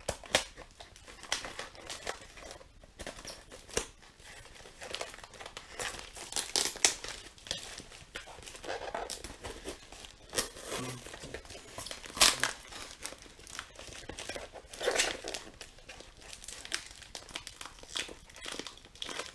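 A taped cardboard parcel being cut open with a knife: plastic wrap crinkling, packing tape tearing and the blade scraping on cardboard. It comes as irregular rustles and crackles, with a few louder rips.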